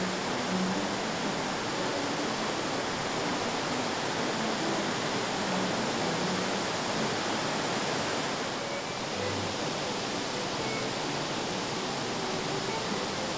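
Fukiware Falls' broad cascade of river water pouring over rock: a steady, dense rush, dipping slightly about two-thirds of the way through.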